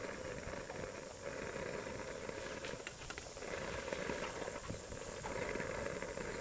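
Fish soup boiling in a large aluminium pot: a steady bubbling hiss, with a few faint clicks about halfway through.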